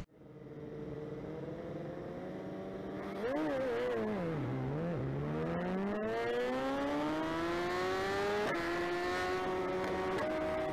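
BMW S1000RR inline-four superbike engine, heard from the bike itself. It idles, is blipped up and down a couple of times, then its revs rise steadily for a few seconds as the bike pulls away, with a change in pitch near the end.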